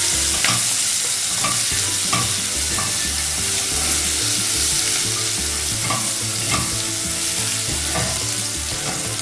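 Sliced onions sizzling as they fry in hot oil in a pot, stirred with a silicone spatula that scrapes and knocks against the pot every second or so.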